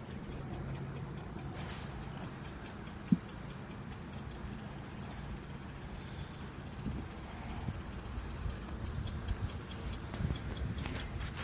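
Honeybees buzzing around an open hive as frames are handled, a steady low hum, with one sharp click about three seconds in.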